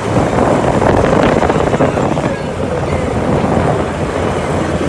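A vehicle running steadily, with wind buffeting the microphone.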